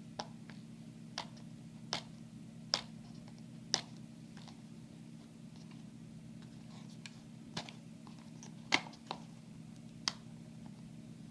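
Scattered small clicks and taps from hands fiddling with a small audio cable, trying to pull a part of it out, about ten irregular ticks over a low steady hum.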